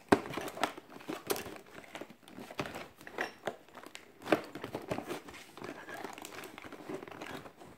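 Cardboard crinkling and rustling with irregular sharp clicks and tearing-like scrapes, as the outer cardboard cover of an advent calendar box is worked loose and pulled off.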